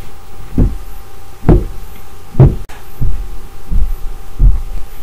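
Heavy, dull thumps, six of them in five seconds at uneven intervals, from a person's vigorous body movements while acting out the squash.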